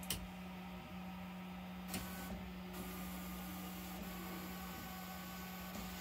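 Voron Trident 3D printer's stepper motors driving the gantry and toolhead carriage: a whine that steps in pitch as the moves change, over a constant low hum. A click comes at the start and another about two seconds in.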